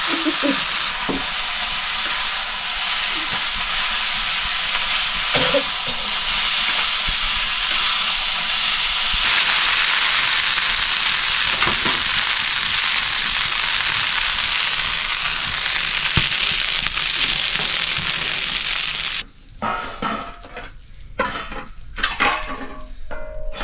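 Food sizzling as it fries in a hot pan, a steady hiss with a few light knocks of stirring. The sizzle cuts off abruptly near the end, followed by a few short, scattered sounds.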